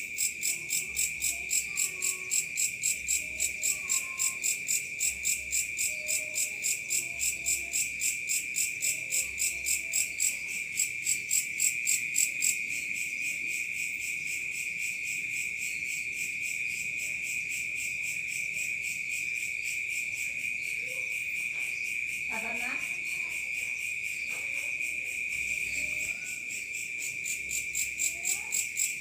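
Night chorus of crickets: one steady high-pitched trill runs throughout, over a second insect chirping in rapid pulses, about three a second, that stop about twelve seconds in. Faint short calls sound underneath, and there is a brief rising call a little after twenty seconds.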